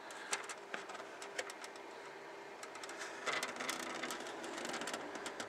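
Handling noise from a plastic model-kit fuselage part: scattered light clicks and rustles, busiest a little past the middle, over a faint steady hum.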